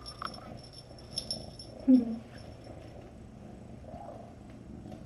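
A single short, muffled dog bark about two seconds in, the loudest sound, with a few faint clicks before it.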